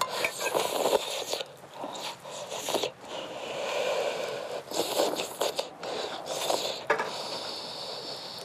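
A person slurping noodles with chopsticks, sucking long strands up from the bowl in a series of several noisy draws, some over a second long, with short pauses between.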